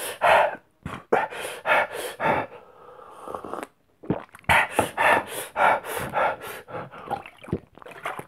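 A man panting and gasping in quick, noisy breaths and pained vocal noises, a reaction to the burning heat of the Paqui One Chip Challenge chip he has just eaten. The breaths come in fast bursts, with a short break about four seconds in.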